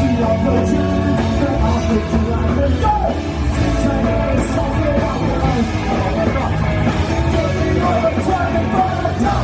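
Live rock band playing a song, with a singer's voice over the band.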